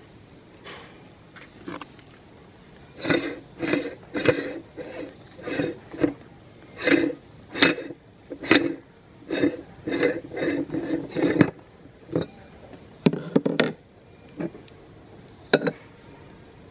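Metal parts of a hand-cranked meat grinder clinking and scraping as its front ring and cutting plate are handled and taken off. The clinks come about one or two a second for several seconds, with a few scattered knocks near the end.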